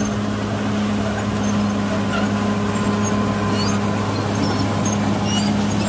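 Caterpillar bulldozer's diesel engine running steadily with a low hum while the blade pushes a load of earth.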